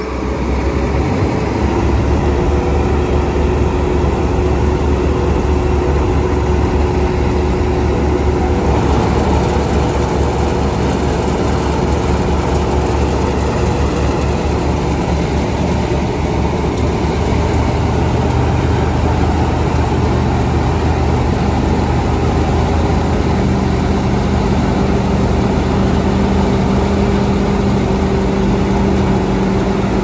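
Massey Ferguson 241 tractor's diesel engine running steadily, its low note shifting slightly a little past halfway and again later.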